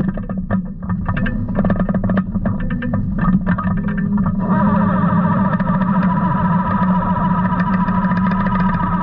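Rock music with distorted electric guitar: short choppy strokes at first, then sustained chords from about halfway through.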